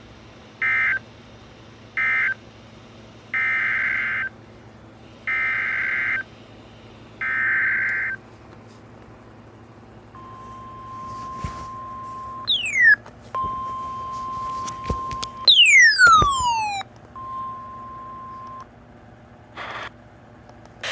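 Emergency Alert System data bursts from a NOAA weather radio broadcast: three short warbling bursts ending one alert, then three longer bursts opening the next. These are followed by the steady 1050 Hz weather-radio alert tone, which breaks off twice around two loud falling whistles.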